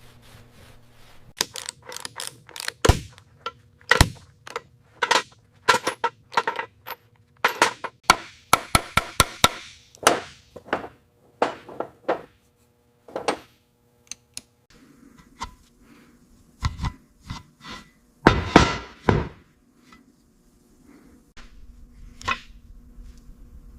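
Workshop tool work: a long, irregular run of sharp knocks, taps and clicks, with a quick flurry of taps about a third of the way in and a couple of heavier knocks later on.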